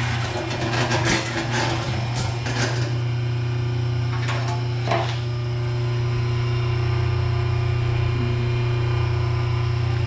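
Steady low hum of a calf milk pasteurizer running, holding its milk at feeding temperature. Knocks and rattles of its metal lid being handled and lifted open in the first few seconds, with a few more about four to five seconds in.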